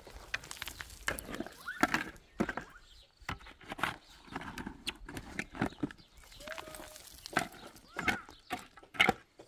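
Steel shovel blade repeatedly striking and scraping into stony, gravelly soil as a hole is dug, in irregular chops about one every half second to second. A few short pitched calls, like distant bleats, sound between the strikes.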